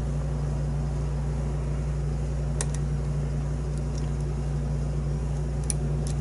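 A steady low background hum, with a few faint, small ticks from a lock pick working against the pins inside a pin-tumbler lock.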